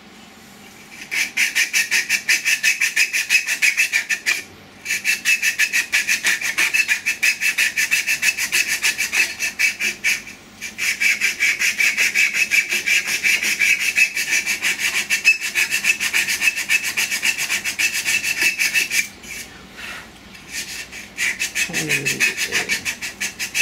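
Abrasive cloth held against a spinning turned wooden tulip, probably camphor laurel, on a small lathe. The saw-cut petals strike the cloth in a fast ticking rasp. It breaks off briefly twice and eases for a couple of seconds near the end as the cloth is lifted and moved.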